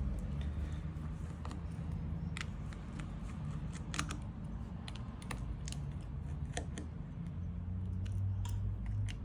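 Small, scattered clicks and light scrapes of a Phillips screwdriver working the little screws out of a smartphone's inner frame, over a steady low hum.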